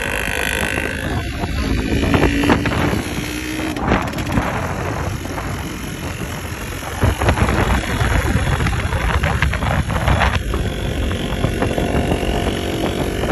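Wind buffeting the microphone over the rumble and rattle of an open vehicle riding along a concrete road, with frequent small jolts.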